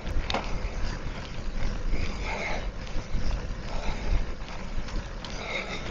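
Wind rumbling and buffeting on the handlebar microphone of a moving bicycle, over the rolling noise of its tyres on the paved path.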